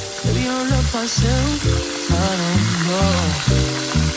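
Hot oil sizzling steadily as battered pieces fry in a pan, under background music with a sung melody and a heavy bass line.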